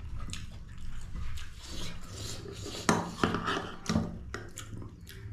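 Close-up eating sounds of someone eating pork fry: wet chewing and mouth noises, with three sharp clicks about three to four seconds in.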